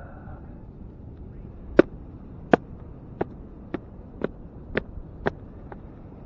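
A series of about eight sharp clicks or taps, roughly one every half second, over a low rumble of wind on the microphone.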